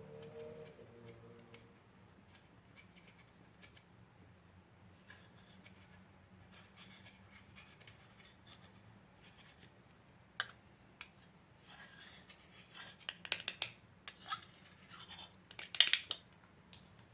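Close-up handling of slime and makeup: scattered sharp clicks and crackles, sparse and faint at first, growing denser and louder from about ten seconds in and loudest near the end.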